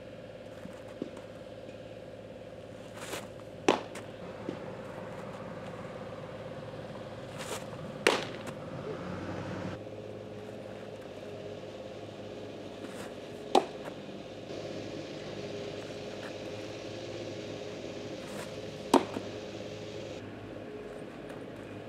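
Pitched baseballs popping into a catcher's mitt: four sharp pops about five seconds apart, one per pitch.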